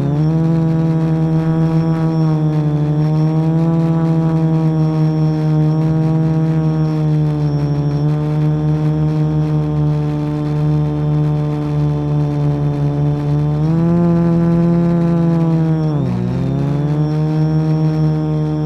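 Quadcopter's electric motors and propellers buzzing with a steady pitched hum in flight, heard through the onboard action camera's microphone. The pitch wavers with the throttle: it rises about 14 seconds in, then drops sharply and climbs back.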